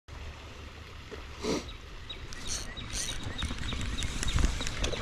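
Outdoor ambience: wind rumbling on the microphone, with a few short high chirps and a run of small ticks.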